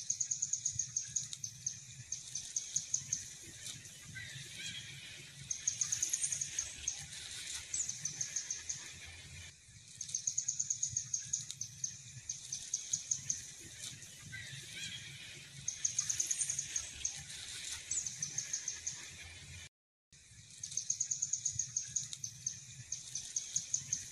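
Outdoor ambience with a high, rapid trill, a quick run of clicks lasting about a second and repeating every couple of seconds, broken by short rising whistle-like calls, over a low steady hum.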